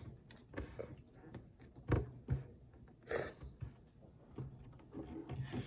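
Faint scattered clicks and taps of small toy pieces being handled and pressed together, with a sharper knock about two seconds in and a brief rustle about a second later.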